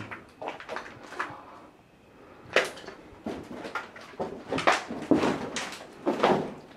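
Footsteps on a debris-strewn hard floor, a string of irregular scuffs and knocks about every half second to a second, in a bare hallway.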